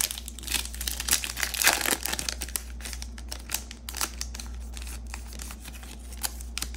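Plastic wrapper of a Topps baseball card pack crinkling as it is torn open and pulled apart by hand, in irregular crackles that are loudest about two seconds in.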